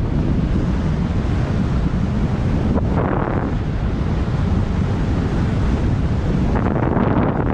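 Airflow buffeting the camera's microphone in flight: a loud, steady, deep rushing of wind noise.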